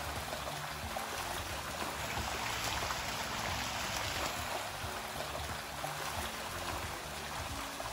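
A dense school of fish splashing and churning at the water's surface as they are fed, a steady splashing hiss without distinct single splashes.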